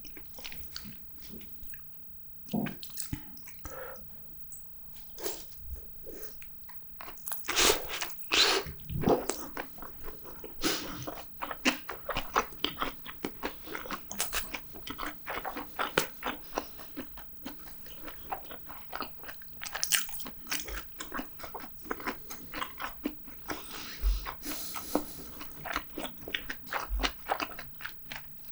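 A person eating with the mouth close to the microphone: steady biting and chewing with many short, wet clicks and some crunchy bites. The loudest bites come about a third of the way in.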